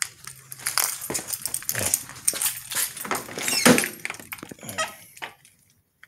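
A bunch of keys jingling and clinking as it is handled, with a few sharper knocks among it.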